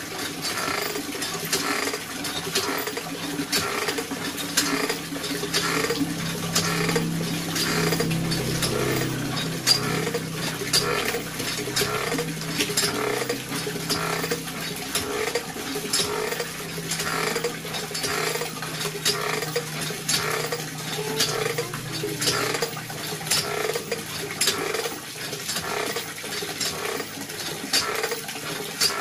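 Cast-iron hand water pump being worked by its lever, clanking and creaking in a steady rhythm with each stroke, while water gushes from the spout and splashes into a plastic bucket.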